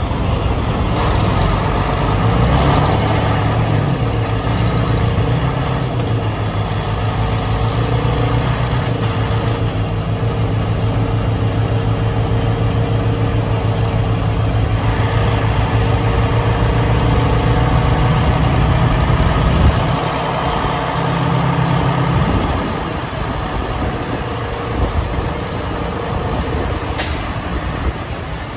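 Semi truck's diesel engine running steadily at low speed while the rig manoeuvres to park; about two-thirds of the way through the engine note drops and quiets. A sudden hiss starts near the end.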